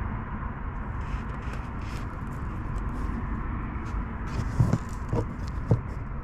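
Small clicks and scrapes of a stripped wire being pushed into a butt connector, then a few sharper knocks of the crimping tool squeezing it, over a steady low rumble.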